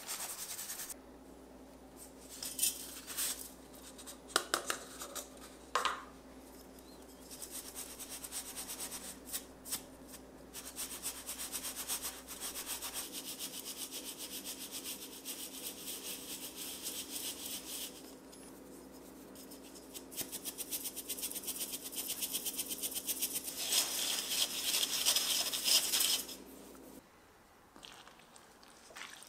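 Acorn starch being sifted through a stainless-steel sieve over a metal bowl: a fast, even rasping of powder on the mesh in two long stretches. A few separate taps and rustles come in the first seconds.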